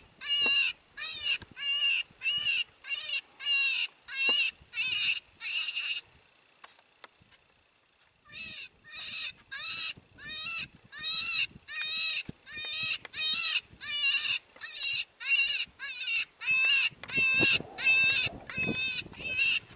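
Electronic predator call playing a distress cry to lure coyotes: a wavering, high-pitched cry repeated about twice a second, each one the same. It stops for about two seconds near the middle and then starts again.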